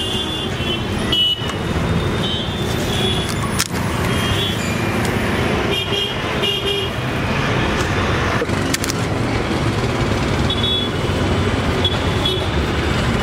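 Steady street traffic noise with short, repeated vehicle horn toots scattered throughout.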